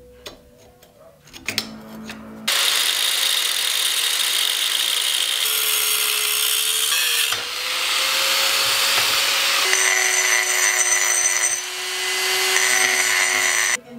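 An angle grinder cuts through a steel tube: a loud, harsh hiss over a steady motor whine that starts about two and a half seconds in. Near the end a different handheld power tool, with a lower whine, works the cut end of the tube.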